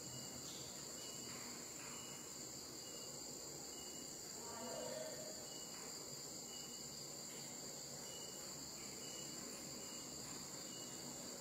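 Steady high-pitched chorus of night insects. A brief voice-like sound rises above it about four and a half seconds in.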